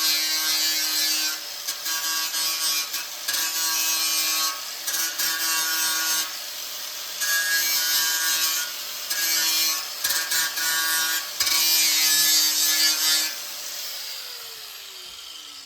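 Electric grinder running and pressed against the steel gas tank in repeated passes, stripping the paint around the dents down to rough bare metal for body filler. Near the end the grinder is switched off and winds down in a falling whine.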